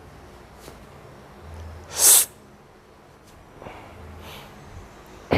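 A person's single short, forceful burst of breath about two seconds in, like a sneeze or a hard blow, with another sharp one starting at the very end.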